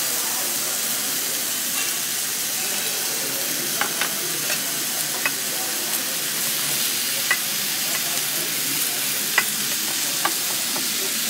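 Sliced meat and garlic sizzling on a gas-fired tabletop Korean barbecue grill plate, a steady hiss with a few light clicks from metal tongs turning the meat.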